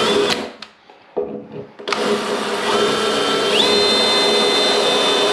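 DeWalt XR cordless drill boring into a tiled wall: a short spin right at the start, then about four seconds of steady drilling with a high grinding whine that shifts up in pitch partway through.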